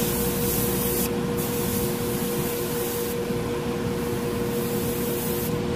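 Harder & Steenbeck Grafo T1 airbrush with a 0.15 mm nozzle spraying paint at close range, a steady hiss of air and paint. The hiss stops for a moment about a second in and starts again, with a steady low hum underneath.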